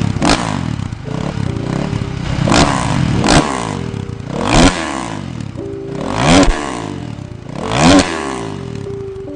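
2007 Kawasaki KX450F's single-cylinder four-stroke dirt bike engine revved hard again and again, its pitch rising and falling about six times.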